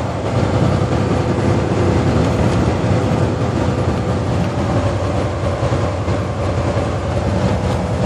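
Steady drone inside a semi-truck cab cruising at about 45 mph: a low diesel engine hum under a constant wash of road and wind noise.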